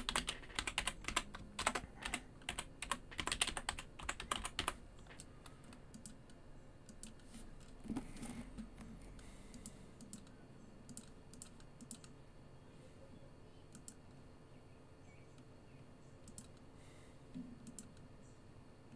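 Typing on a computer keyboard: a quick run of key clicks for about five seconds, then only occasional single key presses, with one soft knock about eight seconds in.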